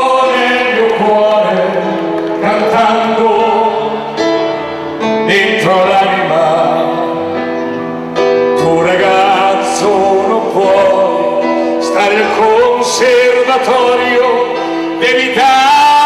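Italian pop ballad over a dance hall's sound system: a backing track with long sustained sung notes over it and no lyrics heard, between the verses of a live male singer's performance.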